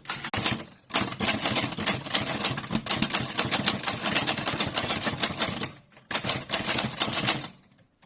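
Torpedo 6 typewriter keys striking in quick runs of keystrokes. About three-quarters of the way through, the typing pauses while a single ringing ding sounds, typical of the margin bell. The typing then resumes briefly and stops near the end.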